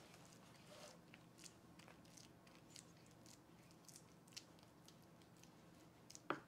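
Faint scrapes and soft crunching taps of a wooden spatula spreading a moist, crumbly oatmeal mixture in a metal baking pan, with one sharper knock near the end.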